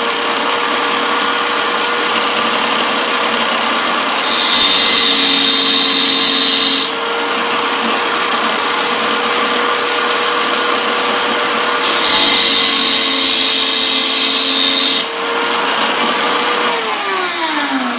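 Small tile cutter's diamond wheel running with a steady whine while the carbide teeth of a table saw blade are ground on it, in two louder grinding passes of about three seconds each. Near the end the motor winds down, falling in pitch.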